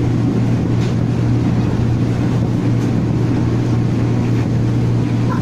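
Running noise heard inside a former JR East Nambu Line 205 series electric multiple unit travelling at speed: a steady low hum over an even rumble.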